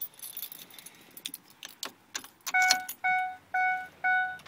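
Keys jangling and clicking at the ignition of a 2008 Ford E-450 Super Duty, then, about halfway in, the dash warning chime starts: four short beeps about half a second apart, with the key on and the engine not yet running.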